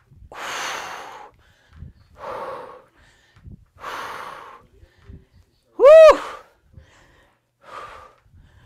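A woman's forceful exhaled breaths, one with each kettlebell swing, about one every two seconds. About six seconds in, one comes out as a short, loud voiced sound that rises and falls in pitch.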